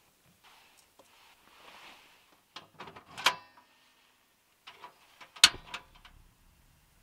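Portable butane cassette stove's ignition knob being turned: a few small clicks and a sharp metallic snap about three seconds in, then a louder snap about five and a half seconds in.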